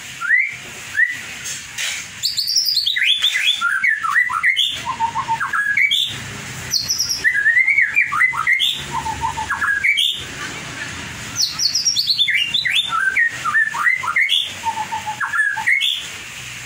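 White-rumped shama (murai batu) singing loudly in three long, fast phrases of varied whistles and trills that sweep up and down in pitch, with short pauses between them.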